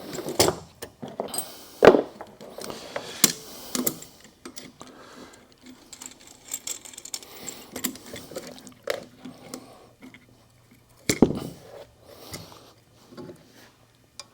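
Small metal parts and a valve spring compressor clinking and knocking against one another as valve springs and keepers are worked off a Ford 302 cylinder head: irregular light clinks with a few louder knocks, one near the end.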